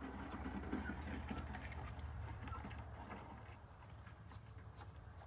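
Irregular light clicks and clinks of hand tools working on metal, over a steady low hum.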